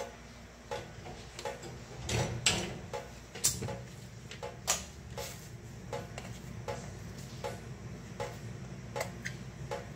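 Kitchen faucet making a regular ticking, roughly one tick every three-quarters of a second: the faulty tap that keeps making noise. A few louder knocks come between about two and five seconds in.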